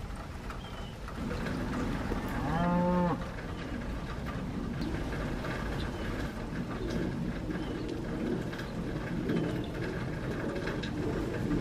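A cow moos once, briefly, about two and a half seconds in, over a steady low rumble.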